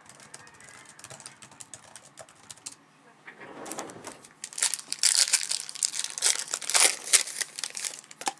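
Trading-card pack wrapper crinkling and being torn open. After a few light ticks, the crackling builds from about three seconds in and turns loud and sharp from about four and a half seconds.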